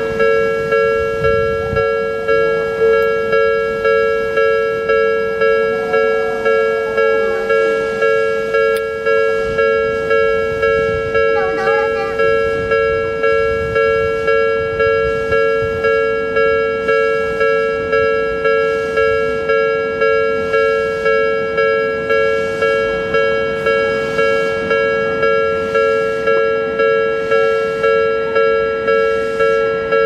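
Japanese railway level-crossing warning alarm ringing: an electronic bell tone that strikes and fades over and over at a quick, even pace. It is the sign that the crossing is closed for an approaching train.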